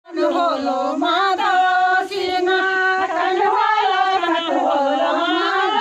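A group of women singing together in unison, a chanchari folk ring-dance song, with long held and gliding notes.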